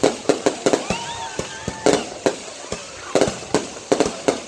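Fireworks going off in rapid, irregular succession: sharp bangs several times a second. A voice calls out briefly about a second in.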